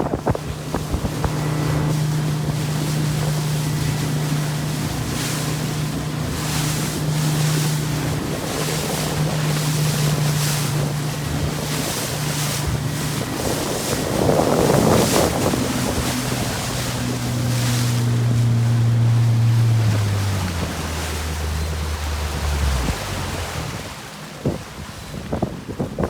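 Small motorboat's engine running steadily under wind buffeting the microphone and water splashing; late on, the engine note drops in steps as it throttles down, and it stops about three seconds before the end.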